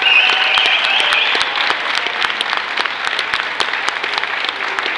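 Audience clapping steadily, with a high voice cheering over the clapping in the first second or so.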